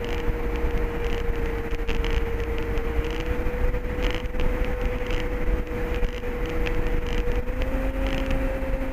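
Steady engine and propeller drone with wind rush inside the cockpit of an MD3 Rider ultralight in flight, its pitch edging up slightly late on.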